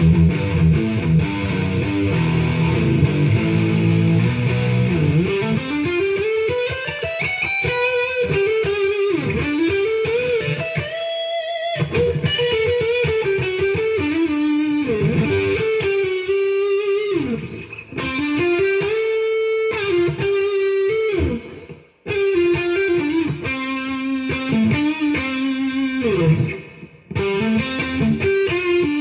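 Ibanez RG350EX electric guitar on its neck humbucker, played through a Roland Blues Cube BC-60 amp's built-in distortion. It starts with chords for about five seconds, then moves to a single-note lead line with string bends, pausing briefly once.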